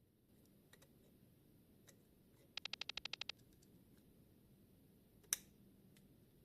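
Near silence broken by small clicks: a quick rattling run of about a dozen clicks about two and a half seconds in, and one sharp click a little after five seconds, with a few faint ticks between.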